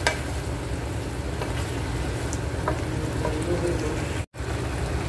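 A thick chicken and bell-pepper tomato sauce simmering and bubbling in a non-stick frying pan, with a few light clicks of a wooden spatula against the pan. The sound cuts out for a moment about four seconds in.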